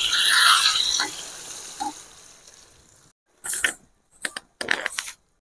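Hot tempering oil sizzling in a stainless steel pan as the gongura chutney goes in, the sizzle dying away over the first two or three seconds. Then a steel spoon scrapes against the pan a few times as the chutney is stirred.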